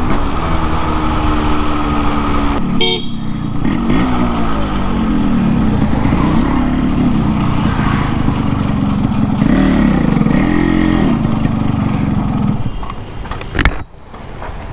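Yamaha RX100's 98cc single-cylinder two-stroke engine running under way, its revs rising and falling with the throttle, with wind and road noise. The engine note falls away near the end as the bike slows.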